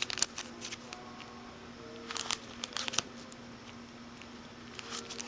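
Light crinkling and scattered small clicks of handling, over a faint steady hum.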